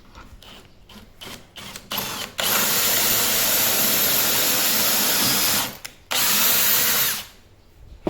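A power tool running in two loud steady bursts, the first about three seconds long and the second about a second, after a few light knocks.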